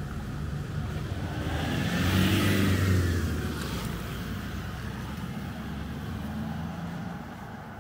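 A motor vehicle driving past on the highway: its engine and tyre noise build to a peak about two to three seconds in, then fade as it moves away.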